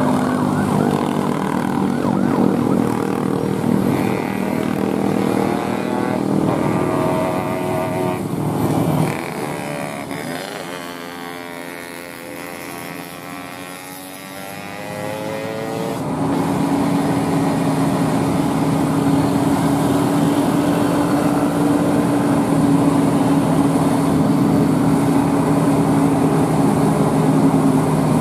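Traffic engines on a steep climb: motorcycles and cars go past, with a pass-by sweep near the middle. From a little past halfway, a heavy truck's diesel engine runs steadily and loudly under load, hauling an excavator on a trailer uphill.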